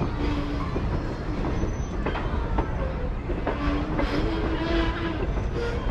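Train cars rolling slowly past, with clicking knocks from the wheels and squealing tones from wheel on rail that come and go.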